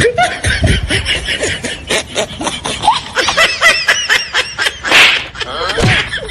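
Laughter in quick, rapid pulses with high-pitched giggles, and a loud noisy burst about five seconds in.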